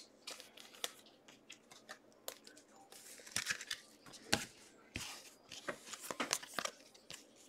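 Football trading cards and their packs being handled at a table: scattered soft clicks, slides and brief rustles of card stock and wrappers.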